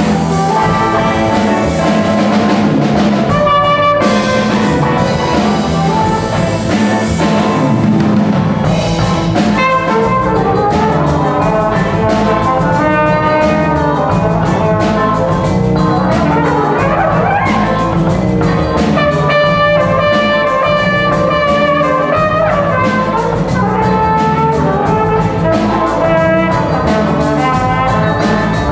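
Small jazz band playing live: trumpet and trombone carry the melody over keyboard, guitar, bass and drums keeping a steady beat.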